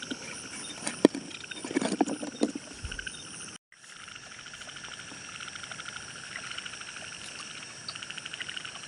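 A chorus of frogs and insects calling together as a steady, fast-pulsing trill. A few sharp knocks and clicks come between about one and two and a half seconds in, and the sound cuts out for a moment just after three and a half seconds.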